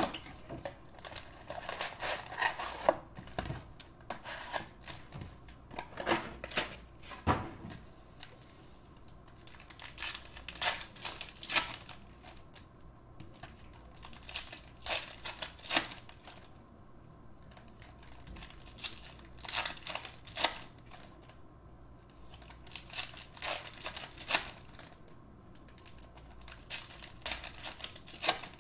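Foil-wrapped Donruss Optic basketball card packs crinkling and rustling as they are pulled from the box and torn open, with cards handled and tapped onto the table: an irregular string of sharp crackles and clicks.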